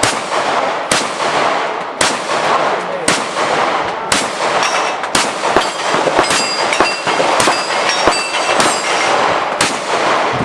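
Glock pistol fired in a string of a dozen or more shots, about one every half second to a second, at steel plates; several hits set the steel ringing briefly.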